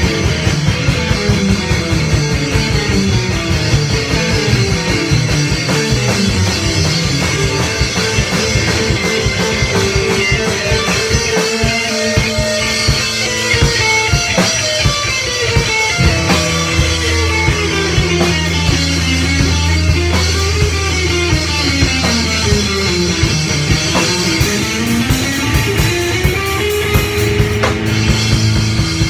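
Rock band jamming live: drum kit with quick, steady hits and electric guitars. In the second half guitar lines slide up and down in pitch over a held low note.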